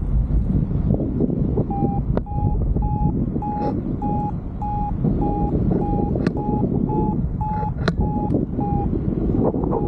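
Paragliding variometer beeping in short, evenly spaced pulses, about two to three a second, from about two seconds in until shortly before the end: the sign that the glider is climbing in lift. Under it, strong wind rush on the microphone, with a few sharp clicks.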